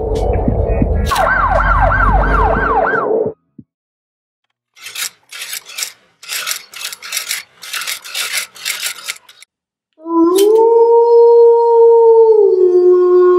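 Edited sound effects. First a dense low rumble with a steady hum and a fast warbling sweep repeating about three times a second, cut off abruptly about three seconds in. After a short silence comes a run of irregular crackling bursts, and from about ten seconds a loud sustained chord of electronic tones that glides up, holds, then steps down in pitch near the end.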